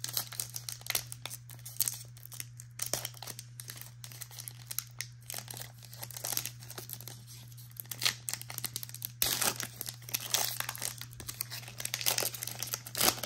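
Foil trading-card pack wrapper crinkling and tearing as it is ripped open by hand, in irregular crackles that grow denser and louder about nine seconds in. A steady low hum runs underneath.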